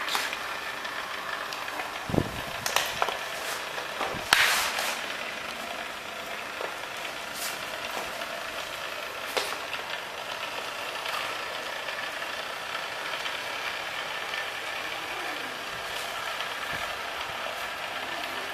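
Geomembrane welding machine running steadily as it drives itself along the overlap of two plastic liner sheets. A few clicks and knocks come in the first few seconds, the loudest about four seconds in.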